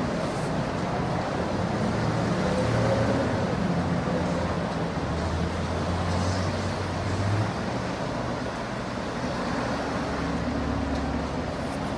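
Light city traffic ambience: a steady low rumble of road vehicles, with engine hum coming and going as they pass.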